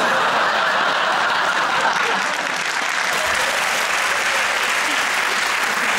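Studio audience applauding steadily, the applause starting sharply right after a bleeped punchline.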